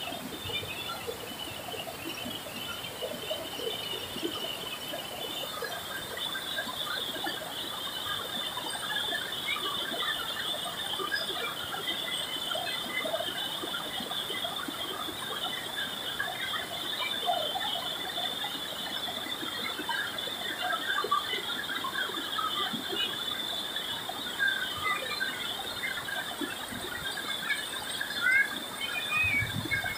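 River rapids rushing over rock ledges under a steady high-pitched buzzing drone, with many short scattered chirps.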